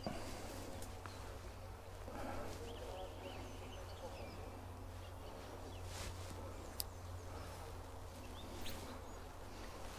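Small birds chirping now and then over a faint outdoor background, with a few brief rustles and a single sharp click about seven seconds in.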